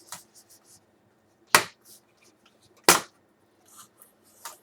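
Sharp plastic clicks and snaps of a part being popped out of a laptop's chassis: two loud clicks about a second and a half apart among fainter taps.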